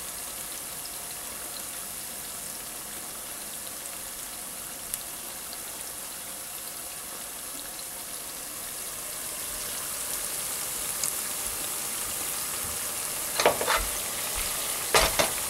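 Batter-coated small fish deep-frying in a pot of hot oil, a steady sizzling hiss that grows a little louder about two-thirds of the way through. A few sharp knocks come near the end.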